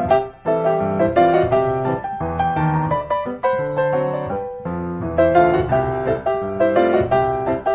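Solo piano music, a busy run of quick notes and chords.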